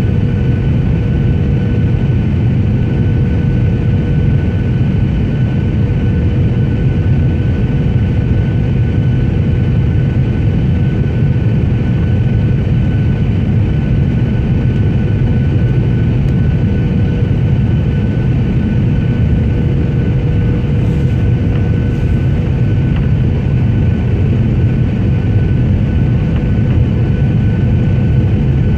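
Steady engine drone and rushing noise inside an airliner cabin, heavy and low, with a faint steady hum held on two pitches.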